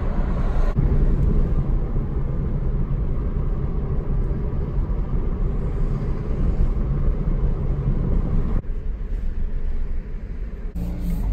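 Steady low rumble of road and engine noise inside a moving car, changing abruptly twice.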